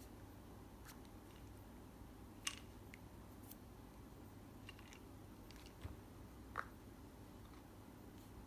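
Near silence with a few small, sharp clicks and taps, the loudest about two and a half seconds in and again about six and a half seconds in.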